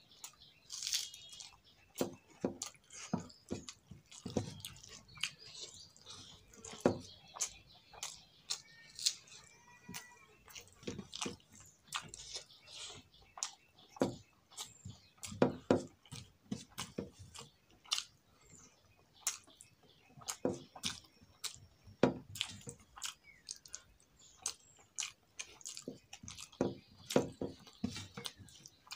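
Close-up sounds of a person eating rice and potato-eggplant curry by hand: wet chewing and lip smacks, with fingers squishing and scraping the rice around a stainless steel plate. Irregular sharp clicks and smacks, a few every second, with no speech.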